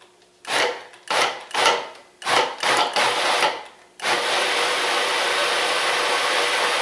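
Food processor pulsed about five times in quick succession, then run steadily from about four seconds in, chopping habanero peppers, onion and cilantro in a liquid marinade down to a slurry.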